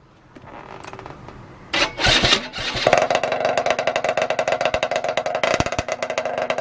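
Yamaha RZ50's 50 cc two-stroke single running through its expansion chamber with a newly fitted silencer. It gets loud about two seconds in, then settles into a fast, even, crackling firing rhythm.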